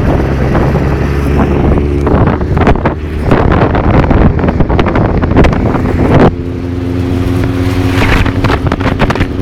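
Motorcycle engine running while riding, with heavy wind buffeting on the microphone. The engine note changes suddenly about six seconds in and then holds a steadier tone.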